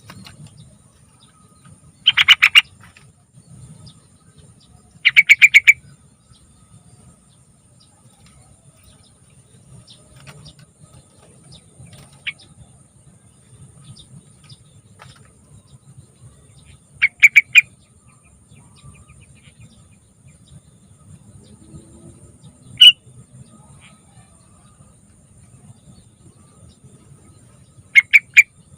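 Yellow-vented bulbul (trucukan) singing: five short, loud bursts of rapid bubbly notes, each about half a second long and spaced several seconds apart.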